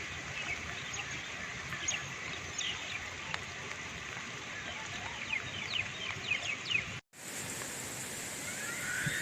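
Birds chirping again and again over a steady hiss; the sound drops out for a moment about seven seconds in, and then the hiss goes on.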